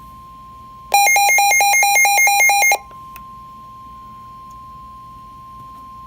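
NOAA Weather Radio's steady 1050 Hz warning alarm tone, signalling that a warning message is about to be broadcast. About a second in, a much louder rapidly pulsing electronic alarm from the weather radio receiver sounds over it for about two seconds, then the steady tone carries on.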